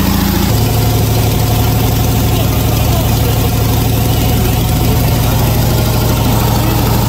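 An engine idling steadily, settling to a lower pitch about half a second in.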